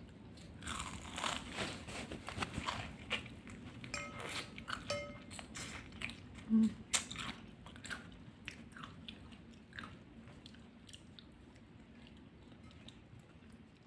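Close-up biting and chewing of crunchy food, with dense crisp crunches in the first half that thin out to softer chewing later. A brief low tone sounds about halfway through.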